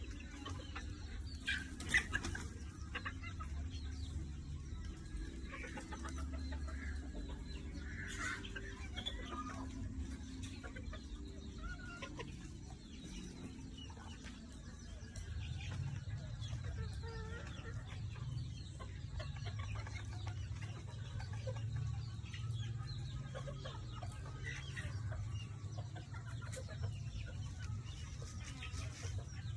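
Chickens clucking, with short scattered calls throughout, over a steady low rumble. A sharp click stands out about two seconds in.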